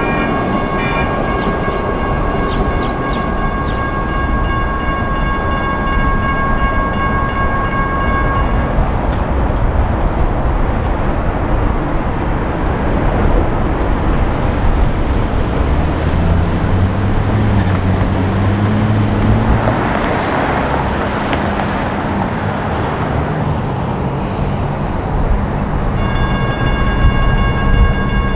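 GS Type 1 electronic crossing bells ringing over the rumble of passing light rail trains; the bells stop about eight seconds in, as the gates start to rise. Street and traffic noise follows, with a low engine hum in the middle, and near the end the bells start ringing again as the crossing activates once more.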